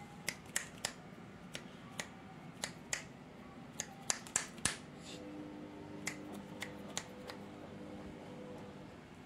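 A series of about fifteen sharp clicks at uneven intervals, the loudest bunched around four to five seconds in. A faint steady hum comes in partway through.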